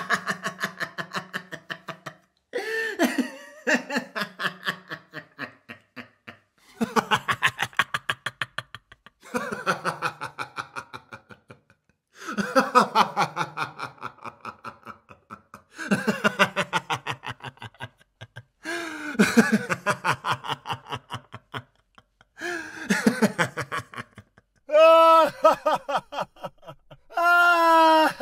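A series of separate men's laughs, one after another with short silent gaps. Each lasts about two seconds and is made of quick 'ha-ha' pulses that fall away. Near the end come two longer, higher-pitched drawn-out laughs.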